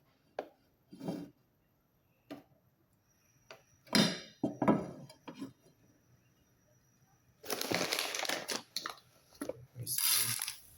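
Pan and utensil knocks and clinks, then, about seven and a half seconds in, a dense crackling rattle for a couple of seconds as popcorn kernels go into the hot oil in the pan, with another short burst near the end.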